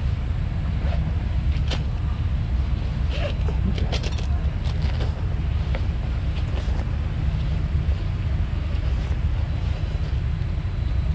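Wind buffeting the microphone as a steady low rumble, with a few light clicks and knocks between about one and five seconds in.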